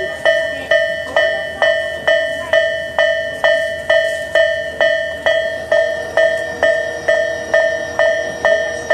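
Japanese railway level-crossing warning bell ringing, a repeated clanging ding about twice a second, sounding while the crossing closes ahead of an approaching train.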